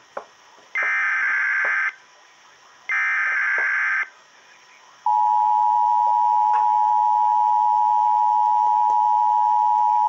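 Emergency Alert System tones from a speaker. Two harsh, buzzing SAME data bursts of about a second each, a second apart, then the steady two-tone attention signal, which starts about halfway through and holds for about five seconds, announcing a National Weather Service warning.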